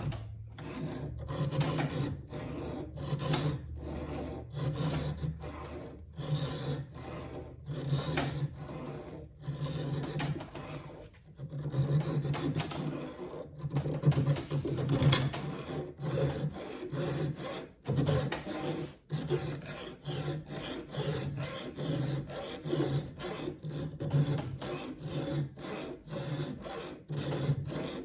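Hand file rasping back and forth across the top plate of a saw chain cutter in quick, even strokes, reshaping the cutter by hand.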